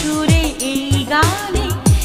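Background song with a sung melody over a steady beat of deep, falling bass kicks.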